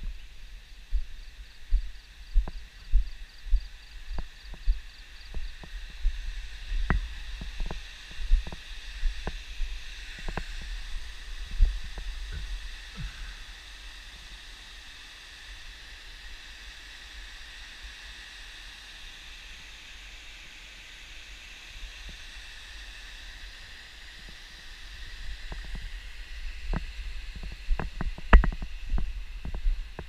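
Low thuds of footsteps carried through a handheld action camera as its holder walks. They stop for about ten seconds midway and start again near the end. Under them runs a steady high-pitched chorus of insects.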